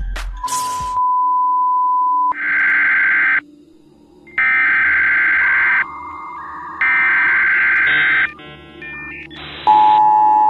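Emergency alert broadcast tones. A steady beep lasts about two seconds, then three harsh electronic data screeches of about a second each follow with short gaps. A few quick beeps come next, and near the end the steady two-tone alert signal begins.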